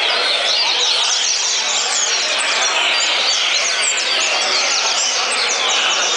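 Coleiro (double-collared seedeater) song within a dense chorus of many caged birds singing at once: fast chirps and quick sweeping whistles overlapping without a break.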